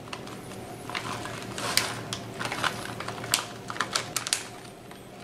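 Plastic bag of shredded cheese crinkling in irregular sharp crackles as it is squeezed and shaken out over a bowl.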